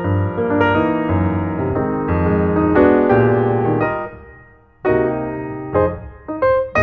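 Background piano music, a melody of struck notes that fades out about four seconds in and starts again a moment later.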